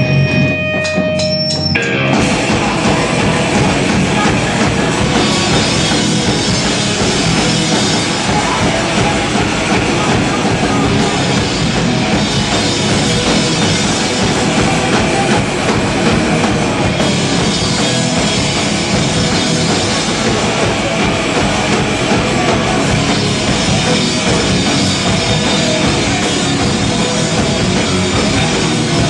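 A hardcore punk band playing live with guitars and a drum kit. A few ringing notes sound at first, then about two seconds in the full band comes in and keeps playing loud and dense.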